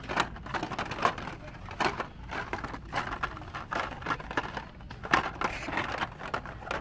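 Hot Wheels blister-pack cards on store pegs clacking and crinkling as a hand flips through them: irregular plastic and cardboard clicks and rustles, a few louder knocks among them, over a low steady hum.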